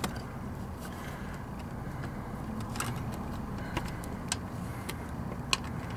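Scattered light clicks and taps from a magnetic spark plug tool and extension being worked down into a spark plug well, as a new plug is seated in the head. A steady low hum runs under the clicks.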